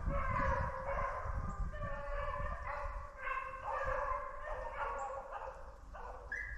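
A pack of rabbit dogs baying together on a rabbit's trail, drawn-out calls overlapping one after another with no break.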